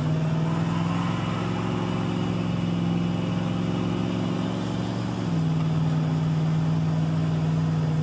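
An old Dodge pickup truck's engine running steadily while driving, heard from inside the cab. About five seconds in, the drone drops slightly in pitch and gets a little louder.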